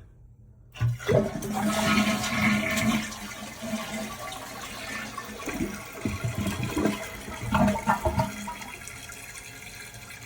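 Toilet flushing about a second in: a loud rush of water that settles into a quieter, steady running of water as the tank refills through its newly installed fill valve, with a few clunks along the way.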